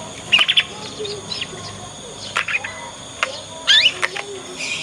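Young canary's learning song: scattered short chirps and twitters, with a louder cluster of quick rising chirps about three-quarters of the way through.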